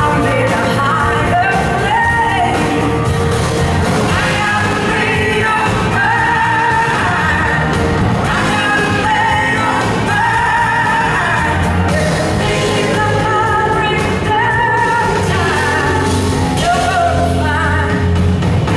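Live blues-rock band playing, with a woman singing lead over electric guitars and drums.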